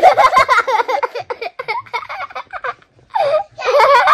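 A child laughing hard in quick, high-pitched bursts, breaking off briefly about three seconds in, then laughing again.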